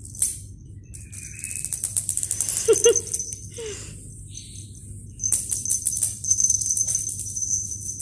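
Rapid rattling and jingling in two bursts, the first about a second in and the second a little past five seconds, each lasting about two seconds, with a couple of short high sounds near the three-second mark.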